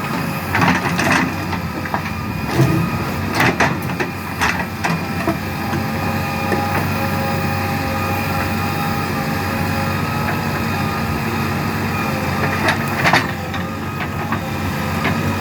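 JCB 3DX Plus backhoe loader's diesel engine running steadily under work, with intermittent knocks and clanks, several in the first few seconds and a cluster near the end.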